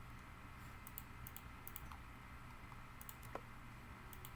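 Faint, irregular clicks and key taps from a computer keyboard and mouse, about a dozen, scattered in small groups.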